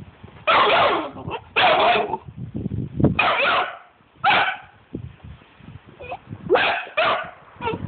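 Vizsla puppy barking: about seven barks in irregular bursts, some of them drawn out, with a pause of nearly two seconds midway.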